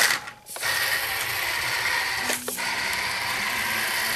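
Electric motor and gear train of a large 3D-printed walking robot running steadily under radio control after a brief stop-start at the beginning. A brief knock comes about halfway through, and the plastic frame creaks under the load.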